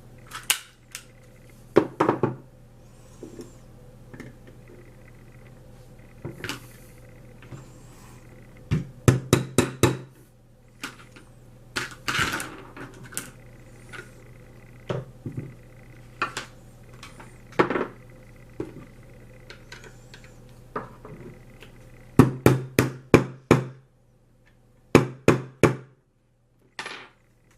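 Sharp metallic clicks and clacks from handling a freshly reassembled Hi-Point pistol, some coming singly and some in quick runs of four or five.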